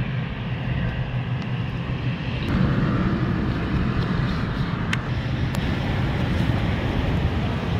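Steady wind buffeting the microphone outdoors, a low rumble with a hiss over it that thickens about two and a half seconds in.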